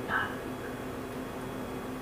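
Room tone: a steady low hum with faint hiss, after a brief trailing word at the very start.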